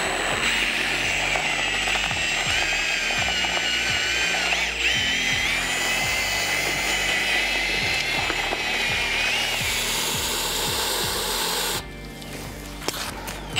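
Power drill turning a spiral auger mixer through concrete and water in a plastic 5-gallon bucket. The motor whines steadily, its pitch wavering as the load changes, and it stops about twelve seconds in. Background music runs underneath.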